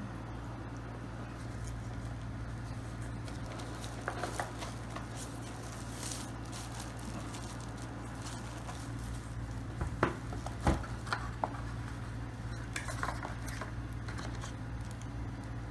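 Scattered light clicks and knocks as a Keychron K2 mechanical keyboard and its packaging are handled, over a steady low hum. The sharpest knocks come in a short cluster about ten seconds in.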